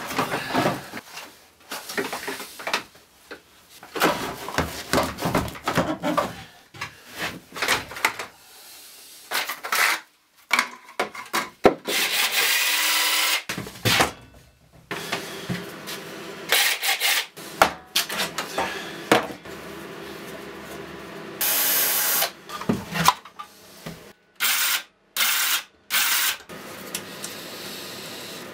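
Workshop sounds of tools and parts being handled, a hedge trimmer among them: many short knocks, clatters and rubs. There is a longer burst of loud, steady noise about twelve seconds in and another about twenty-two seconds in, then several short loud bursts a few seconds later.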